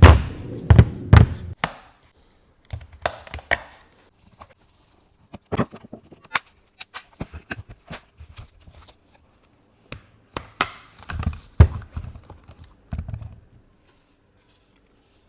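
Irregular clicks, taps and knocks from a JBL speaker's plastic casing and parts being handled and taken apart. The loudest knocks come in the first two seconds and again about ten seconds in.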